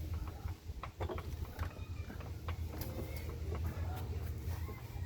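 Scattered light metallic clicks and knocks as a new CV axle is handled and its splines are worked into place, over a steady low hum.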